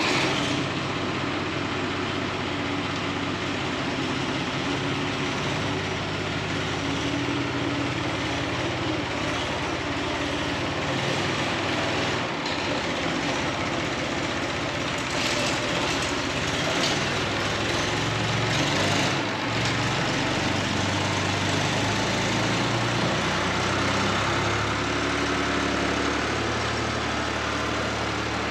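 Heavy farm-machinery engine running at a steady speed, with a few short rattles over it in the middle.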